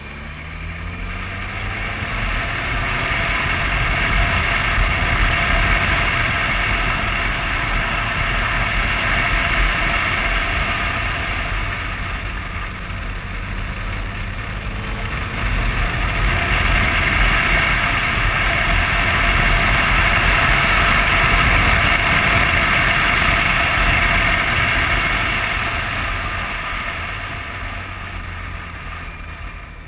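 BMW touring motorcycle under way: wind rushing over the microphone with the engine and tyres running underneath. The rush swells louder twice and dies down near the end.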